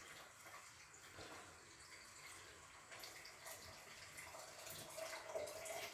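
Faint wet slopping and small clicks of a silicone spatula stirring thick bubur sumsum batter (rice flour and coconut milk) in a wok. It grows a little louder in the second half.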